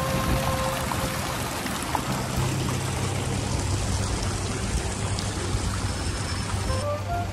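Steady rushing water noise, with a low steady hum underneath.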